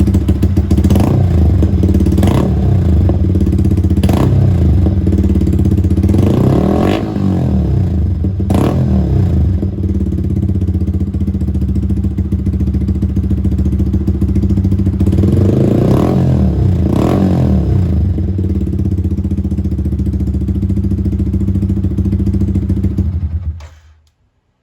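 Yamaha R15 V3's 155 cc single-cylinder engine running loud through a Villain Hyper titanium full-system exhaust with the dB killer removed. It idles, is blipped with short throttle revs several times, then is switched off near the end.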